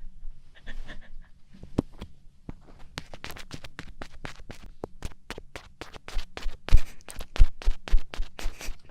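Ear-cleaning ASMR with a daruma tool worked against a microphone's ear: a quick run of short, scratchy clicks, about three or four a second. The strokes turn louder and heavier in the last three seconds.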